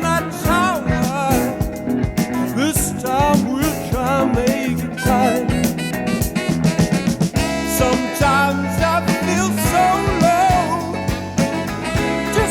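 Westcoast-style soft rock song: a sung vocal line over a band with a steady drum beat.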